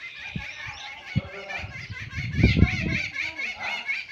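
Small birds chirping over and over in a quick, repeating series, denser in the second half, with a short burst of a person's voice or laugh in the middle.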